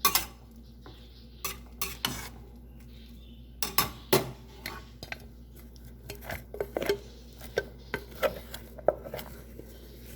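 A spoon stirring rice porridge in a cooking pot, with irregular clinks and scrapes against the pot, loudest at the start and about four seconds in.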